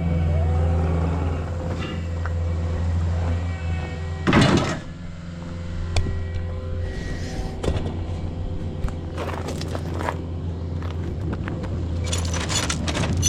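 Diesel engine of heavy earthmoving equipment running steadily. Several sharp clanks and scrapes of metal come over it, the loudest about four and a half seconds in and a quick run of them near the end.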